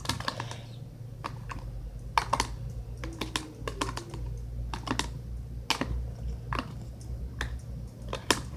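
Irregular sharp clicks and taps, a few a second, of a utensil knocking against a container while the shampoo-and-sugar slime mixture is stirred, over a low steady hum.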